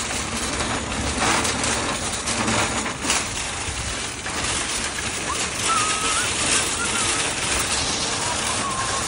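Steady outdoor rushing noise with light metallic rattling from a line of nested metal shopping carts on asphalt, and a few faint high chirps around the middle.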